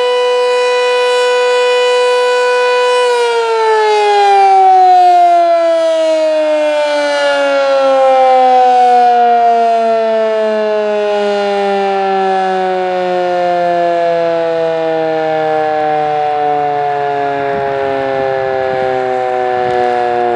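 Sentry 7V8-B outdoor warning siren sounding a steady alert tone, then about three seconds in its pitch begins to fall slowly as the siren winds down at the end of an alert cycle.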